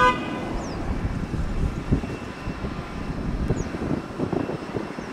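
Jet airliner engines rumbling as a Vietjet Air Airbus A320-family jet flies its final approach with the gear down. A brief pitched tone sounds right at the start.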